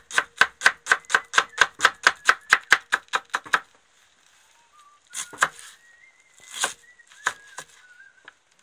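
Kitchen knife chopping an onion on a wooden cutting board: fast, even cuts about five a second that stop about three and a half seconds in, followed by a few separate cuts.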